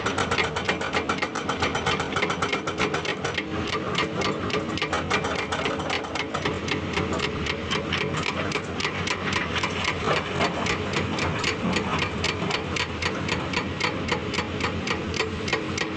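Diesel engine of heavy earthmoving equipment running with a rapid, even ticking clatter over a steady hum.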